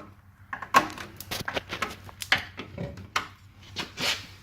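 Irregular clicks, knocks and rustling of things being handled and moved around a stripped car body, a little louder about four seconds in.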